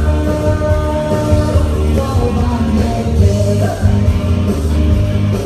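Loud dance music with a singer, played over a mobile disco's sound system, with a heavy, steady bass.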